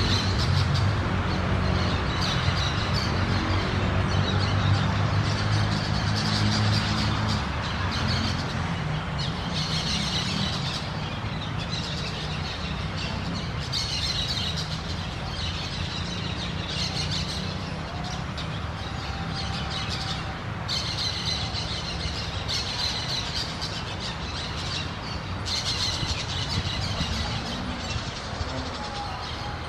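Orange-chinned parakeets chattering and squawking in repeated bursts of shrill, high calls, over a steady background hiss.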